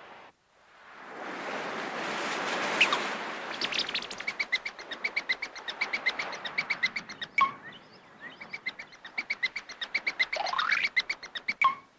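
Surf washing in, swelling over the first few seconds, then a cartoon sound effect for a crab scuttling across sand: a rapid, even run of small chirping ticks, with a short rising whistle near the end.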